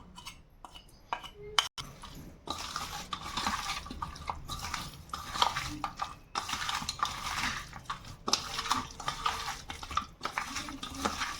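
Chopped chicken being stirred with its spice marinade in a bowl: a continuous wet scraping and clinking against the bowl, starting after about two seconds of a few light clicks.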